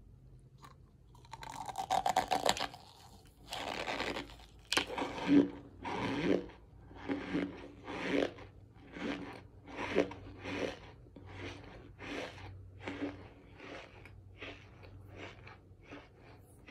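A chunk of compressed cornstarch bitten and crunched, then chewed with dry, crumbly crunches a bit more than once a second. The chews grow softer toward the end as the mouthful breaks down.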